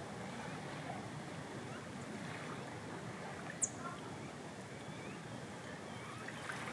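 Seaside ambience: a steady wash of gentle waves and wind. One short, high chirp stands out about three and a half seconds in.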